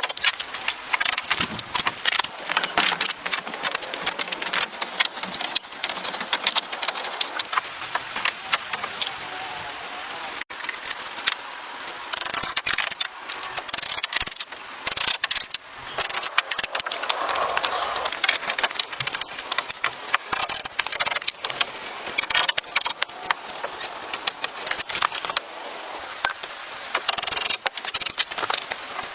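Rapid, irregular clicks, knocks and scrapes from hands-on work.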